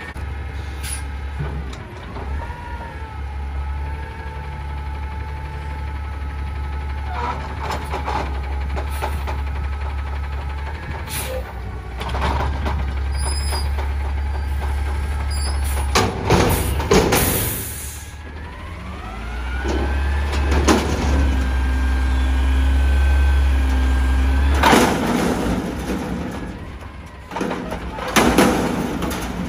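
Peterbilt 320 front-loader garbage truck with an Amrep body, engine running and revving up to drive the hydraulics as the fork arms lift a container over the cab. There are loud clanks and bangs as the container tips and the trash drops into the hopper, heaviest near the end.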